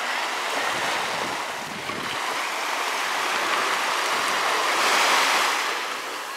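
Small waves washing up on a sandy beach and drawing back: a steady hiss that swells about five seconds in and eases off near the end.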